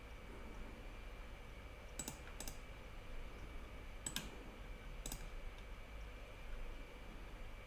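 Four faint, sharp clicks at a computer: two close together about two seconds in, then single ones around four and five seconds, over a low steady hum.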